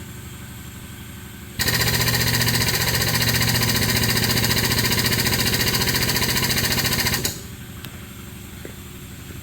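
Hydraulic pump running hard under load to pressurize a hydraulic press, a loud, rapid, chattering mechanical run that starts about a second and a half in and cuts off abruptly about seven seconds in. A steady low machine hum continues underneath before and after.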